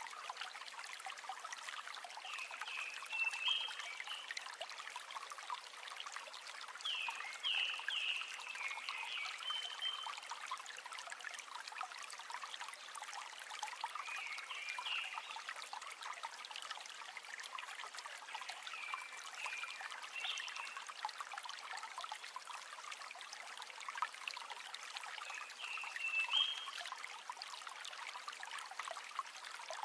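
River water flowing and trickling steadily, with short groups of high chirps from a small animal repeating every four to six seconds.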